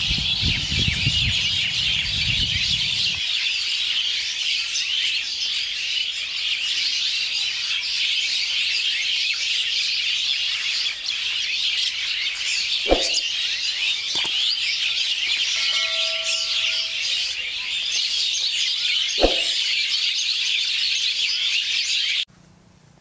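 Dense chorus of many small birds chirping and twittering without a break, cutting off abruptly near the end. A low rumble sits under it for the first few seconds, and there are two brief knocks in the middle.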